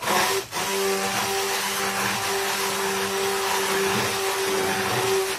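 Hand-held immersion blender switched on and running steadily with an even whirring hum, blending cooked milk pudding and cream in a pot until smooth, then cut off.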